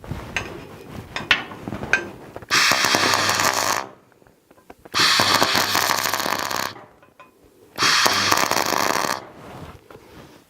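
Electric arc welder laying three short tack welds on a steel gate frame, each a loud crackling sizzle of about one and a half to two seconds over a low hum, with short pauses between. A few clicks and knocks come before the first weld, as the metal is handled.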